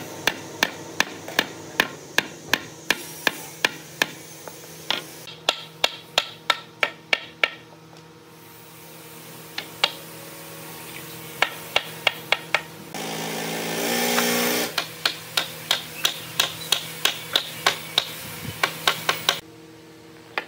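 Metal-headed hammer knocking the joints of a wooden frame together on a concrete floor: runs of quick sharp knocks, several a second, with a pause about a third of the way in. A louder whirring noise for a second or two about two-thirds through.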